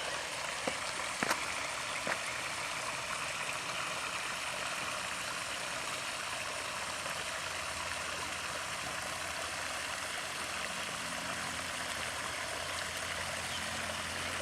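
Water flowing steadily over a spillway, an even, unbroken wash of water noise.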